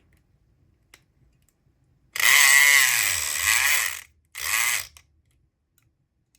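SouthOrd E500XT 4.5-volt electric pick gun buzzing as its vibrating pick works in a lock cylinder: one burst of about two seconds whose pitch sags in the middle and climbs again, then a short half-second burst.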